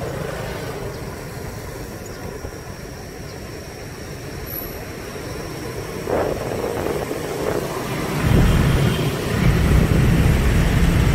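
Street traffic noise from many motor scooters and cars, heard from within the moving traffic, as a steady hum. A louder low rumble comes in about eight seconds in.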